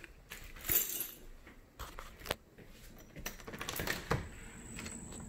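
Sharp metallic clicks and knocks of a glass French door's handle and lock being worked and the door pulled open. About four seconds in, a steady high-pitched insect drone from outside comes in as the door opens.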